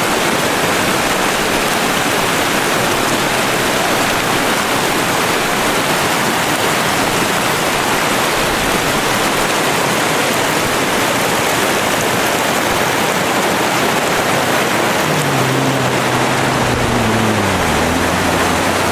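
Shallow river rapids: water rushing and splashing over rocks in a steady, loud wash. Near the end a low droning tone comes in and drops in pitch.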